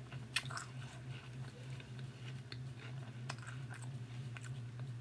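A person chewing a mouthful of Froot Loops cereal in milk, close to the microphone, with scattered soft crunches and wet mouth clicks over a steady low hum.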